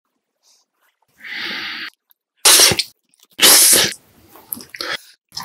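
A person sneezing twice, two loud sharp bursts about a second apart, after a quieter breathy sound.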